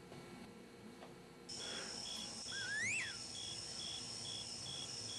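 Faint room tone, then from about a second and a half in an electronic synthesizer cue: a steady high tone with a short beep repeating a little over twice a second, and a whistling glide that rises and then falls near the middle.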